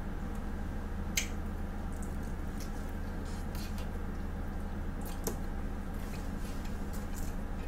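Close-miked chewing and wet mouth sounds from eating a slice of pizza, a few short soft clicks scattered through, over a steady low hum.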